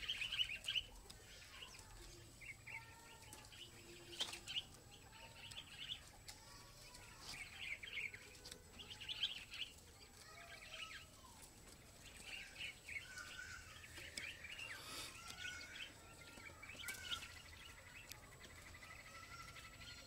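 Small birds chirping in short repeated bursts, with softer whistled notes that arch up and down between them; faint throughout.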